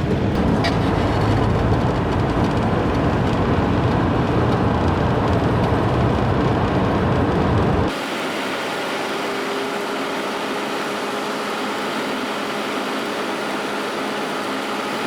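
A vehicle driving, with a dense low engine and road rumble. About eight seconds in it changes abruptly to a lighter, steady hum with faint constant tones.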